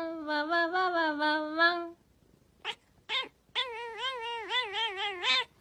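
A cat yowling. One long, wavering call stops about two seconds in, two short calls follow, then a second long call with a rapidly wobbling pitch.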